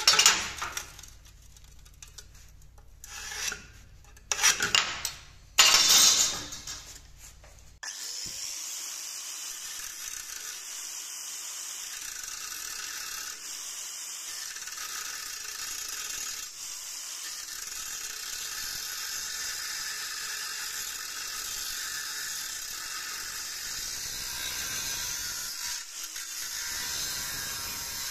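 A few sharp scraping strokes of a scriber drawing a line on steel against a metal straightedge. About eight seconds in, a small angle grinder starts cutting the rectangular steel tube, running steadily. Its new cutting disc is still glazed, so it cuts hard at first.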